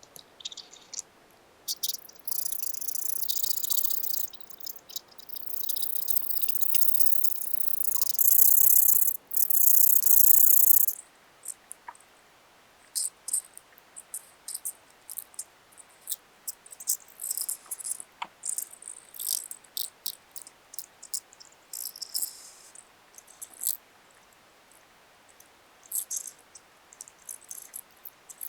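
Paper being handled during paper crafting. There are several seconds of continuous hissy rustling and scraping in the first ten seconds, loudest around the ninth and tenth seconds, then many short separate crinkles and clicks.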